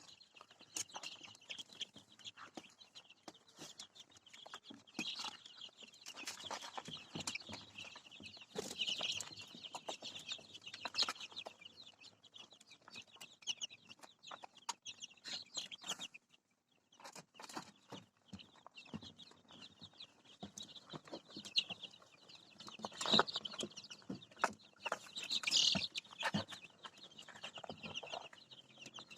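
A brood of young ayam kampung super chicks peeping continuously in dense, high-pitched chirps, with scattered clicks and knocks and a brief lull about halfway through.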